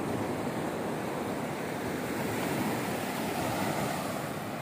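Sea surf washing onto a sandy beach, swelling a little past the middle as a wave breaks, with wind rumbling on the microphone.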